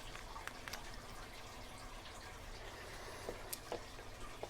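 Faint, scattered small metallic clicks as keys are handled and a key is tried in a tubular lock.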